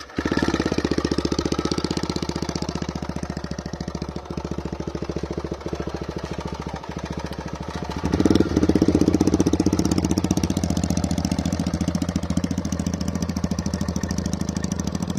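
Two motorcycles idling together through aftermarket exhausts with their dB killers removed, a dense, even exhaust beat. About eight seconds in the sound steps up and gets louder.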